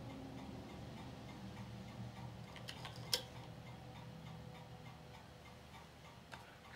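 Ania 5 filmstrip projector running with a steady low hum and faint regular ticking. About three seconds in there is a sharp click as the filmstrip is advanced to the next frame, with a few lighter clicks near the end.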